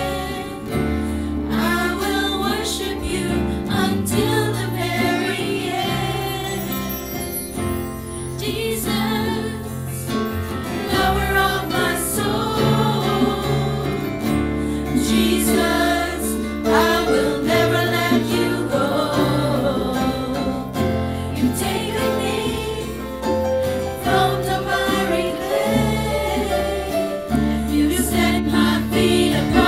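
A group of women singing a worship song together into microphones, backed by a live band with electric bass and guitar, and steady low bass notes under the voices.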